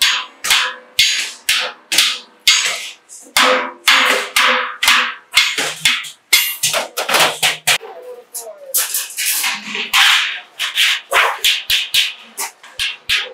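Hammer blows on a galvanized sheet-metal bucket, about two to three sharp strikes a second, each leaving a short metallic ring; the strikes come faster near the end.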